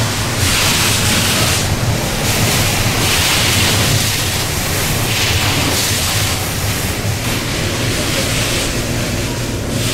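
Automatic train washer spraying water over the body and windows of an ET127 series electric train, heard from inside the car: a hiss of water that swells and fades in about five surges as the spray passes, over the train's steady low hum.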